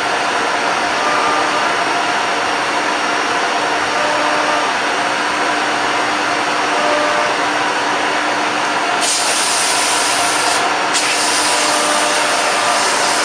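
ATC CNC router running as it engraves a door: a steady, loud machine noise with a faint whine. About nine seconds in, a brighter hiss sets in, cuts out for a moment and comes back.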